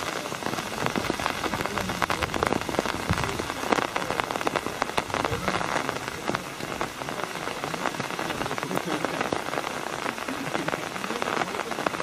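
Steady rain with a dense patter of drops striking an umbrella close by.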